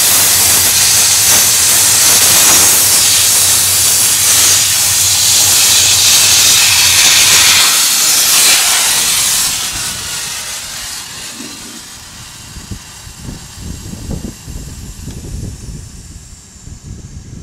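Industrial dry-steam cleaner's wand jetting steam onto a car's brake caliper and disc, a loud steady hiss. The hiss fades out about ten seconds in, leaving quieter, uneven low rumbles.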